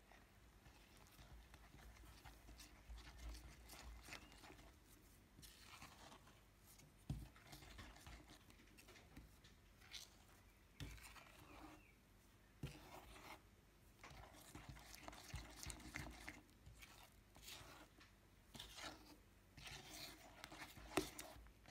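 Silicone spatula stirring a thick white glitter slime mixture in a glass bowl: faint, irregular wet squishing and scraping, with a few sharp clicks where the spatula knocks against the glass.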